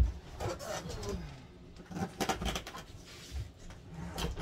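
Knocks and clicks from a stuck closet door being pulled and pushed, the loudest a sharp knock at the start, with a brief falling pitched sound about half a second in.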